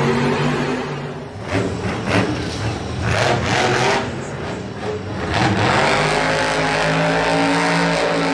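Monster truck engines, supercharged V8s, revving and running hard, the pitch rising and falling with the throttle. There are several sharper bursts of noise in the first half.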